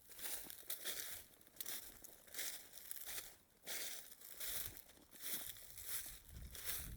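Footsteps crunching through dry fallen leaves on a trail, a crackly rustle with each step, a steady walking rhythm of a step roughly every half to three-quarters of a second.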